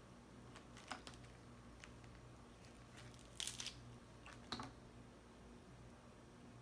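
Crab leg shells cracking and snapping as they are pulled apart by hand: a few faint clicks, then a short crackling burst about three and a half seconds in and one more snap about a second later. A steady low hum sits underneath.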